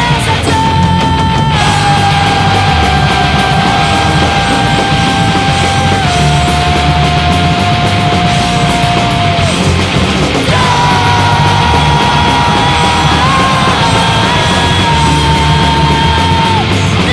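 Loud crust punk recording: distorted guitars, bass and drums, with a melody of long held notes over the top that steps down in pitch, breaks off briefly midway and comes back.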